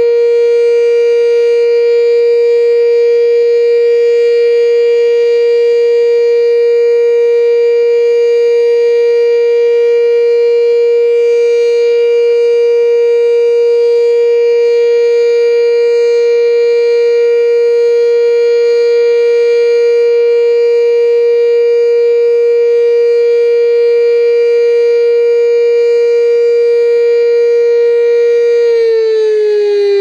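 Sentry 3V8 outdoor warning siren sounding its steady alert signal, holding one pitch. Near the end it starts to wind down, falling in pitch.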